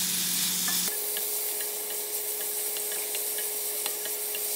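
Cubed beef sizzling in hot oil in a wok as it sears, stirred with a wooden spatula, with a steady hiss and scattered small pops.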